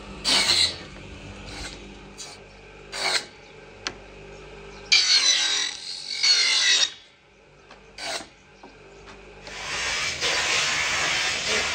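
Thin wooden ruler strips worked on a small motor-driven bench machine, giving short rasping bursts. The longest comes about five seconds in and lasts about two seconds, with a wavering whine. Near the end, water pours steadily from a plastic can into a large metal pot.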